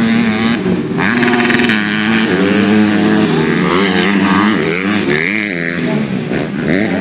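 Super Mini class motocross bikes racing on a dirt track. Several engines overlap, revving up and down in pitch as the riders work the throttle and shift.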